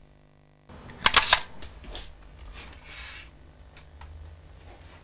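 Plastic Polaroid pack-film instant camera being handled: a sharp cluster of clicks about a second in, then a softer click, a brief rustle and light taps as it goes back onto a shelf.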